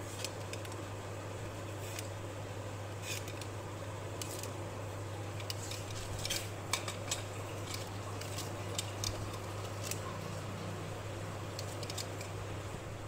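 Scissors snipping through rolled bread dough on parchment paper: irregular short sharp clicks of the blades, busiest in the middle, over a steady low hum.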